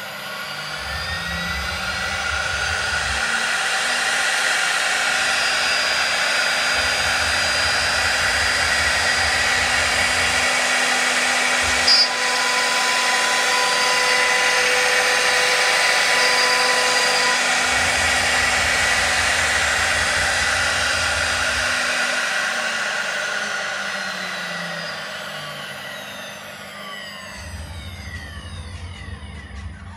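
A CNC router's 3 kW spindle whines up to speed and routes a carving into a wooden board at a steady high pitch, then winds down with its pitch falling over the last several seconds. There is a sharp click about twelve seconds in.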